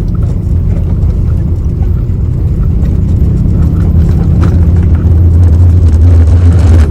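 Heavy bass from a lowered VW Saveiro's car sound system: a loud, steady low boom that swells over the last couple of seconds, mixed with the pickup's driving rumble.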